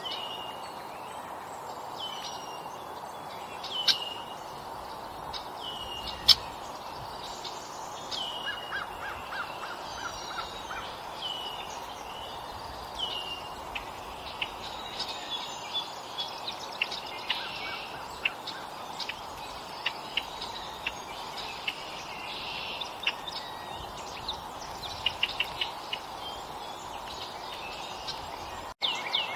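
Wild songbirds calling: one bird repeats a whistled call that slides downward, about once a second for the first dozen seconds. A short rapid trill comes around the middle, then many quick chips and ticks. A steady background hum runs under them.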